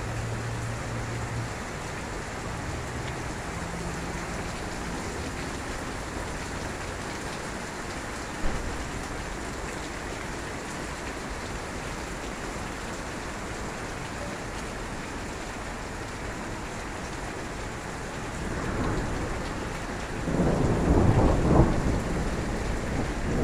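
Steady downpour of rain mixed with hail hitting the street and porch, with a single sharp knock about eight seconds in. A louder low rumble comes near the end.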